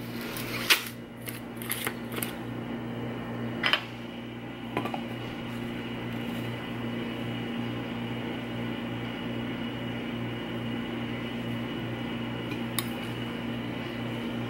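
A few clinks and knocks of kitchenware and containers in the first few seconds, then a steady low hum.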